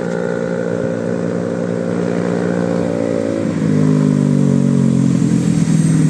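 Large bus's diesel engine running steadily, its note shifting lower and louder about three and a half seconds in.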